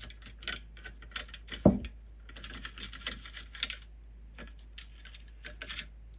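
Small plastic and metal parts of an RC car chassis being handled and taken apart: a run of sharp clicks and light rattles. There is a heavier knock about a second and a half in, and a short scraping, rattling stretch around the middle.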